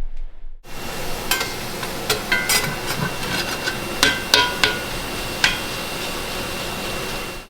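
Clatter of dishes and utensils: a series of sharp clinks and knocks, several ringing briefly, over a steady hiss.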